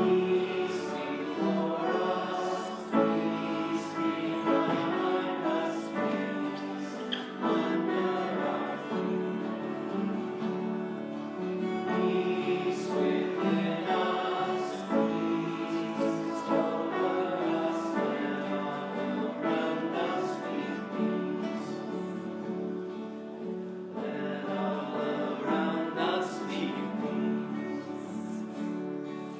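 Congregation singing a song together with instrumental accompaniment, in slow held chords that change every few seconds.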